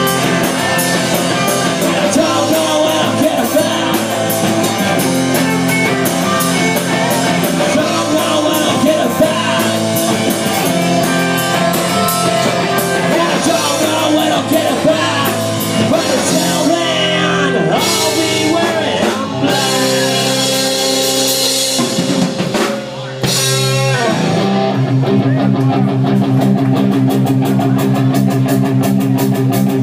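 Live rock band playing loudly: electric guitars, bass and drum kit. The music drops briefly about three-quarters of the way through, then a new section of held, ringing guitar chords begins.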